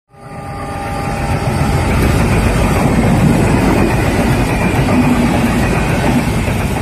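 Indian Railways WDP4D diesel-electric locomotive with its EMD 16-cylinder two-stroke engine running hard under acceleration. The heavy rumble builds over the first couple of seconds, then holds steady, with a faint steady whine in the first few seconds.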